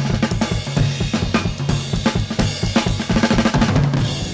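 Late-1960s psychedelic rock recording in an instrumental passage: a drum kit with snare, bass drum and cymbals playing a busy beat over a bass line, with no vocals.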